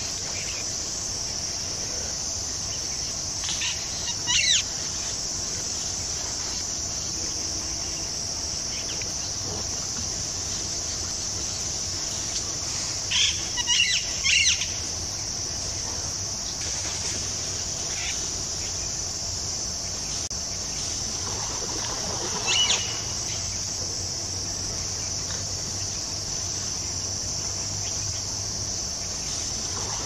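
Insects shrilling steadily in a high, even drone. Short bird calls break through it a few seconds in, in a cluster of several near the middle, and once more about two-thirds through.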